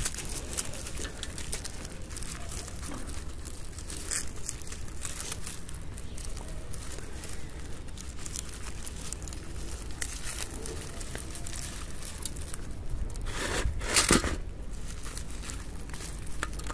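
Hands crumbling compacted potting substrate and teasing apart the dense root ball of an Echeveria elegans colony: a scattered crackle and crinkle of soil, dry roots and dead leaves, with a louder burst of rustling about 14 seconds in.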